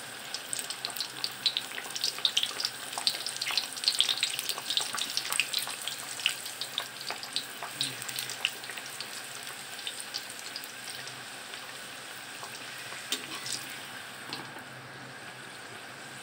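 A lentil-stuffed puran puri deep-frying in hot oil, sizzling with dense crackling pops while a ladle presses it under the oil. The popping is thickest over the first several seconds, then thins to a steady sizzle with only an occasional pop.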